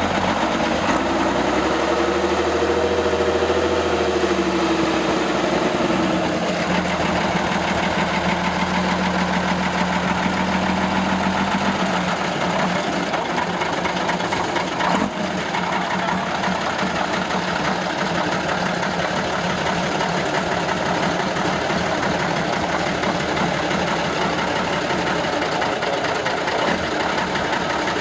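Six-wheeled trial truck's diesel engine running as the truck works over rough ground. The revs rise and fall a few seconds in, then hold steady for several seconds before running less evenly. There is a single knock about halfway through.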